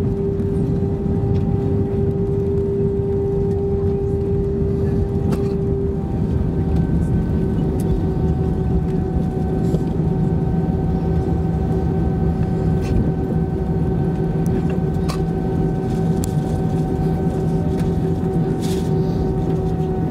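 Airbus A319 cabin noise on the landing roll: the jet engines and airflow make a steady rumble and hiss with held engine tones. About six seconds in, the strongest engine tone drops away and a lower hum takes over.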